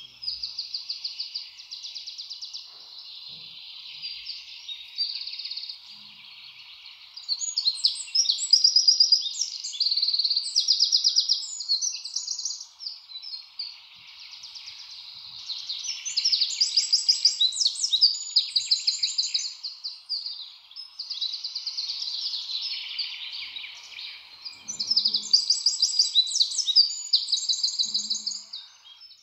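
Birds chirping and trilling in a busy chorus of high, rapid calls that swell and fade in waves.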